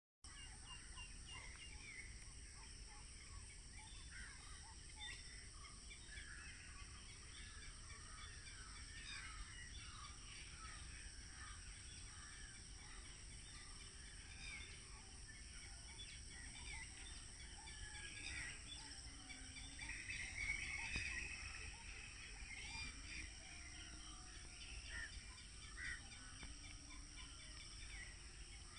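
Faint chorus of many birds chirping and calling at once in the early morning, with a louder cluster of calls about two-thirds of the way through, over a steady high hiss and a low rumble.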